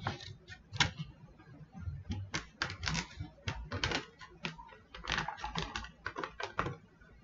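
Irregular clicks, taps and rustles of a small box and its plastic-wrapped contents being opened and handled while unpacking a portable speaker.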